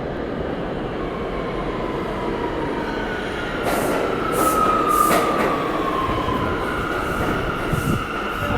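R179 subway train running in the station with a steady rumble and a whine that slides down in pitch, then holds steady. A few short hisses sound in the middle, where it is loudest.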